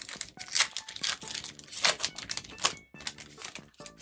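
Pokémon trading cards being flipped and slid through the hand as a pack is gone through: a quick run of crisp snaps and swishes.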